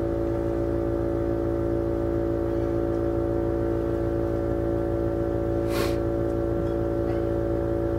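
A steady machine hum at one constant pitch with many overtones, which cuts off suddenly near the end. A single short click sounds about six seconds in.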